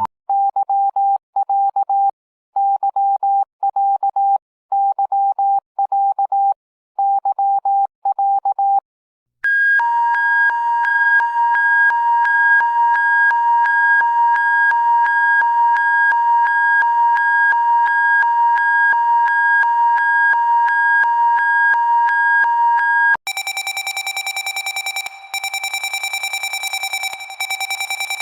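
Electronic emergency-alert tones. First a steady tone sounds in four long beeps with short gaps. About nine seconds in it gives way to one continuous two-note tone. Near the end that switches to a higher, buzzier tone with a fast flutter.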